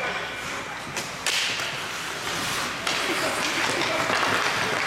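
Ice hockey faceoff: sticks clacking sharply on the ice and against each other twice about a second in, then skate blades scraping the ice more and more as the players skate off after the puck.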